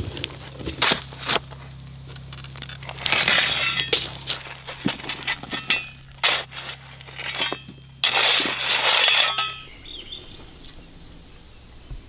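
A steel shovel scooping and scraping gravel into a footer trench, with stones clinking, in several separate scoops. A steady low hum runs underneath. Both stop shortly before the end.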